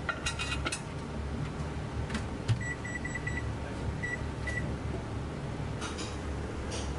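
Short electronic beeps at one high pitch, four in quick succession and then two more, like buttons being pressed on a device. They sound over a steady low hum, and a brief cluster of ringing tones comes near the start.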